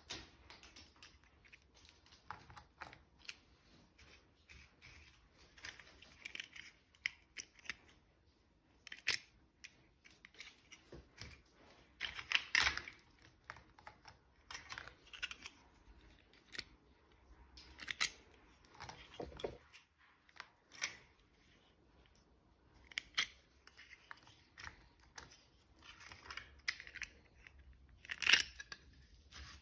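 Toy packaging being opened and handled: scattered crinkles, tears and small clicks of plastic and paper, loudest about twelve seconds in and again near the end.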